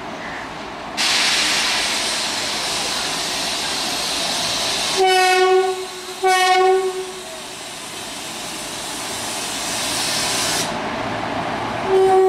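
WAG-7 electric locomotive's horn sounding two short blasts about halfway through, with a third blast starting near the end. Under the horn, a steady loud hiss starts suddenly about a second in and cuts off near the end.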